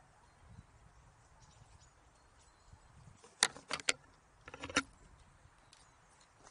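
Dry sapling twigs snapping and knocking as someone pushes through them: three sharp cracks in quick succession, then a shorter rattling group about a second later, over a quiet background.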